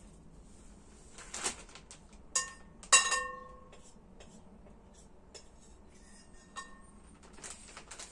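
Dishes and utensils being handled in a kitchen: a few knocks and two ringing clinks about two and a half and three seconds in, the second the loudest, then lighter taps and rustling.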